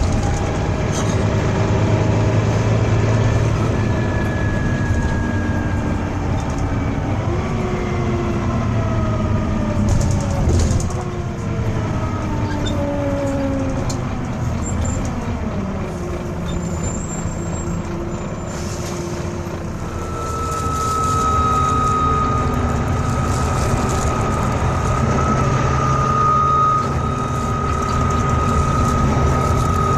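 Volvo B9TL double-decker bus's engine and drivetrain running under way, with several whines gliding down in pitch through the first half. About two-thirds of the way through the bus is driven hard, the engine grows louder and a steady high-pitched wail sets in and holds.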